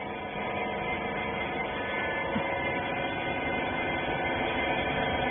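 Steady machine hum of a cotton-wiper baling machine running, its motor holding an even tone with no change in pitch.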